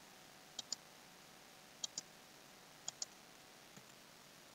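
Computer mouse button clicking about once a second. Each click is a quick double tick of press and release, over near silence.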